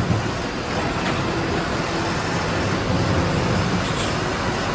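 Wheel loader's diesel engine running and working under varying revs as its grapple clamp digs into a pile of wood scraps, over a steady wash of machinery noise.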